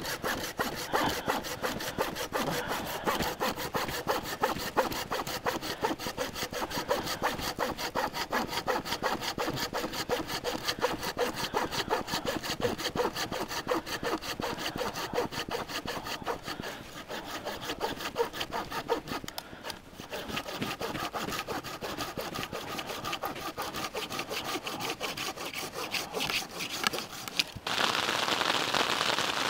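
Hand saw cutting wood in quick, steady, regular strokes, with a brief lull about two-thirds of the way through. The sawing stops near the end, when hail starts falling as a dense, even hiss.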